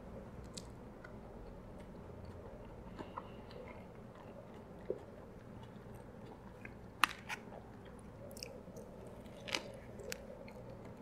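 A person biting and chewing a Big Mac with tartar sauce: soft wet chewing with a few sharp mouth clicks, the loudest about seven seconds in and again about nine and a half seconds in.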